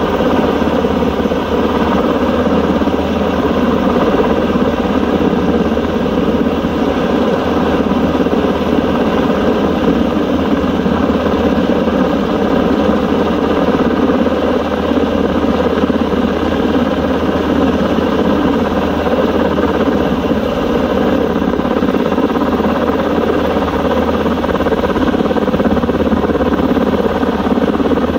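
Helicopter hovering overhead during a long-line lift, its engine and rotor giving a loud, steady drone that holds unchanged throughout.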